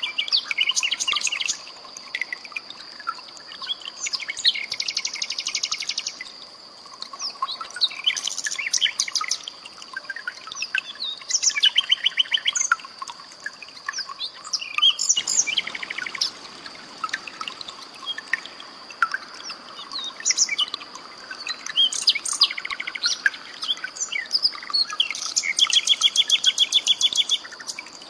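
Common nightingale singing a string of varied phrases, several of them fast trills of rapidly repeated notes, over a steady high-pitched tone.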